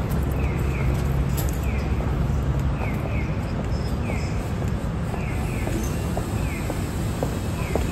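Outdoor city ambience: a steady low traffic rumble, with short high falling chirps that repeat about once a second, often in pairs.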